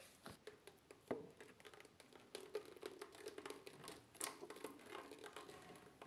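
Faint, irregular clicks, knocks and light rattling of plastic washing-machine parts being handled.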